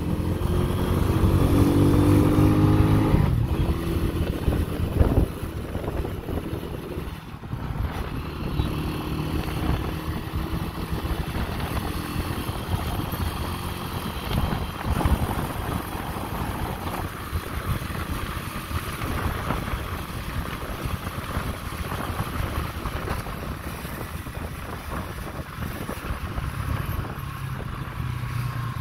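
Motorcycle engine speeding up in the first few seconds, then running steadily along the road under a constant rush of wind and road noise, with other traffic passing.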